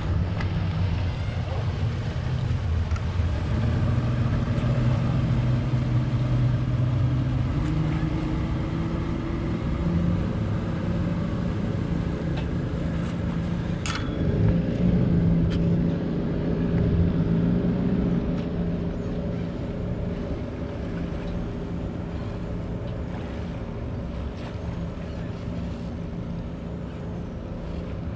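Passenger speedboat's engines running as it pulls away across the bay, a steady hum that slowly fades in the second half. A single sharp click about halfway through.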